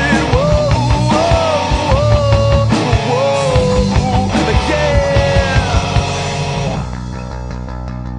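Rock band playing: a singer's voice over electric guitar and drums. Nearly seven seconds in, the voice and drums drop out and the music falls quieter, leaving the guitar sounding on.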